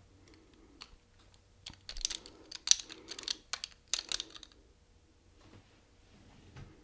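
Plastic eyeglass frames clicking and tapping against one another as another pair is pushed on over a stack of glasses and adjusted by hand: a flurry of light clicks over about three seconds.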